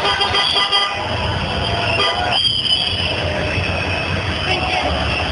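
Many horns sounding at once in a dense, steady din of street and crowd noise, several held horn tones overlapping without a break.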